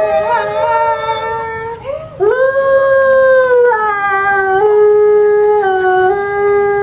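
Arctic wolf howling: a long howl tails off about two seconds in, then after a brief break a new howl swoops up, holds, and steps down in pitch a few times.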